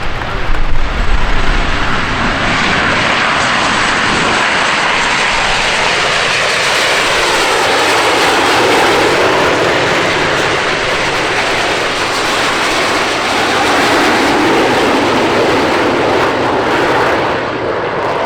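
An airplane's engines heard as it flies past: a loud, steady rush of engine noise that slowly shifts in tone and eases slightly near the end.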